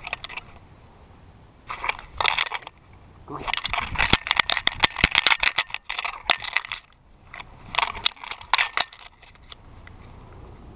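Pit bull's metal collar tags jingling and rattling in bursts as the dog runs and jumps: briefly about two seconds in, a long stretch in the middle, and once more near the end, then dying away.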